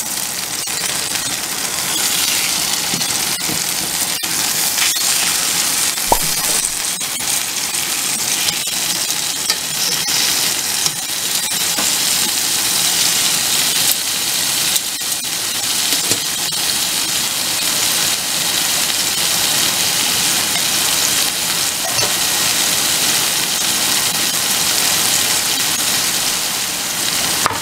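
Seasoned chicken breasts frying in olive oil in a nonstick pan: a steady, crackling sizzle with a few sharp clicks.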